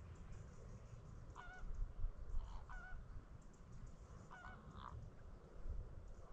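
Honking calls of large wading birds: four separate calls with a wavering pitch, the last two close together, over a low rumble.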